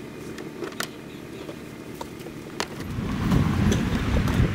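Gear being handled in an SUV's cargo area, with a few sharp knocks and clicks. About three seconds in, loud wind buffeting the microphone takes over.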